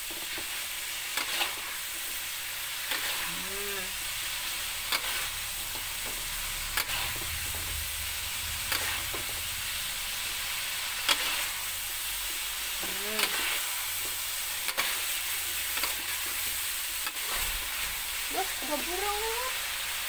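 Chicken rica-rica frying in its chilli spice paste in a wok: a steady sizzle, with a metal spoon scraping and knocking against the wok every second or two as it is stirred.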